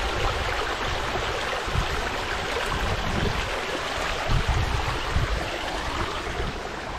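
Small waterfall rushing steadily, with irregular low rumbles underneath.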